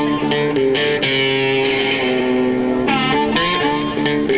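Intro music led by guitar, likely electric: picked notes and strummed chords, with one chord held for about two seconds in the middle.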